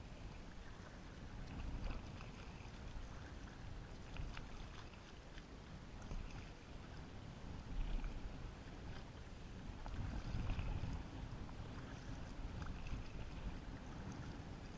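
Kayak being paddled: double-bladed paddle strokes through the water and water moving along the hull, over a low rumble that swells and fades unevenly.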